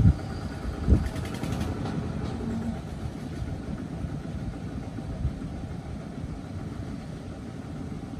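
Engines of small farm tractors hauling loaded rice trailers, running steadily and fading slightly as they move away. A low thump about a second in.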